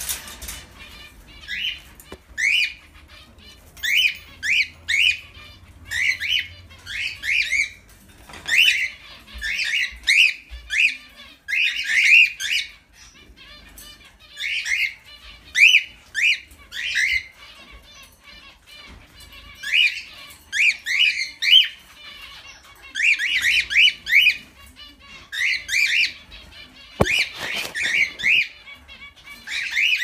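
Cockatiels chirping: short, rising calls in clusters of two to four, repeating about once a second. A brief rustling burst comes near the end.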